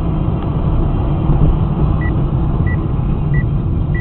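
Steady low rumble of a moving car as picked up by a dash cam inside the vehicle. From about halfway in, a short high electronic beep repeats about every two-thirds of a second.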